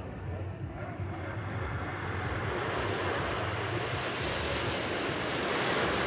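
Small waves breaking on a sandy beach, the wash growing louder as a wave rolls in and breaks near the end. A low wind rumble on the microphone runs underneath.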